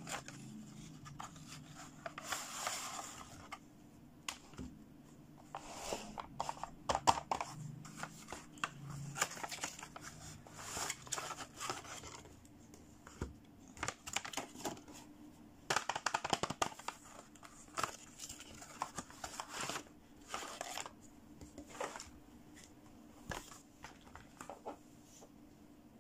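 Hands unboxing fashion dolls: crinkling plastic packaging and rustling cardboard boxes, with light clicks and taps, in irregular bursts that thin out near the end.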